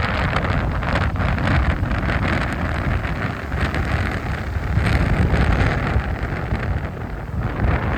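Strong gusting wind buffeting a phone's microphone in a rumbling, uneven roar, over the steady rush of heavy sea waves breaking on the beach.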